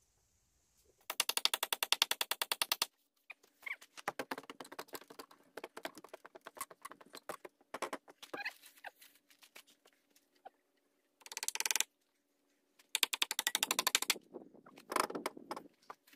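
Hammer driving large nails into wooden stair treads, fast-forwarded so the blows run together into quick rattling bursts, several of them separated by pauses.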